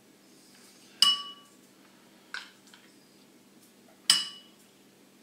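A metal spoon clinking against the rim of a ceramic bowl while crème fraîche is scraped off into it: two sharp ringing clinks about three seconds apart, with a softer knock between them.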